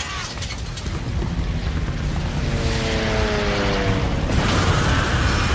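Battle sound effects of a warship under air attack: a heavy low rumble, a pitched tone that falls steadily in the middle, and then a sudden rushing blast about four seconds in.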